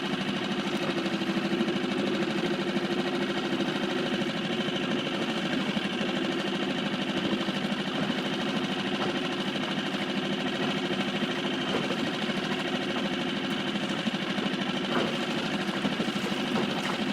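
Small Seatan outboard motor running steadily, driving an inflatable dinghy along under way.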